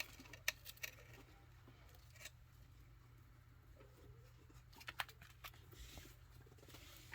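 Near silence with faint, scattered clicks and scratches of chinchillas scrambling about on a toy house.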